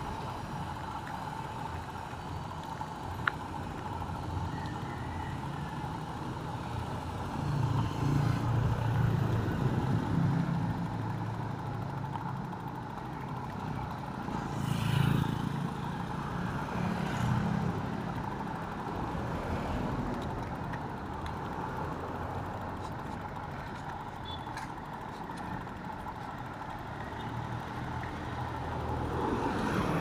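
Street traffic: the engines of vehicles passing close by, swelling several times and loudest about fifteen seconds in, over a steady high-pitched tone.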